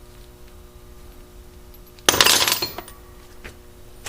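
Rusty steel bolts clattering together once, about two seconds in, a sharp metallic jingle that dies away quickly, over a faint steady hum.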